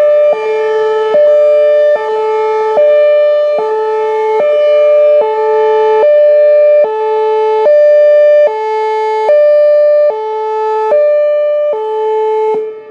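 Whelen Vortex R4 electronic outdoor warning siren sounding its hi-lo signal: a loud two-tone wail that switches between a high and a low pitch about every 0.8 seconds. It cuts off near the end.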